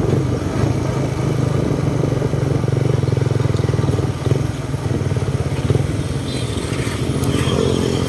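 Motorcycle engine running steadily at cruising speed, heard from a moving motorcycle, with a steady rush of wind and road noise.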